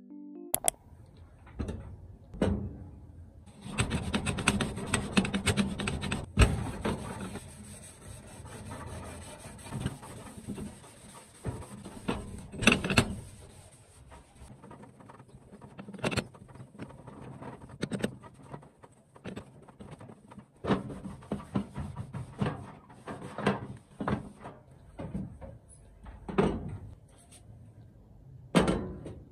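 Household cleaning sounds: scrubbing and wiping on a stainless-steel gas stove top, with scattered knocks and clicks. Near the end there is a sharp clatter as the stove's metal pan supports are set back in place.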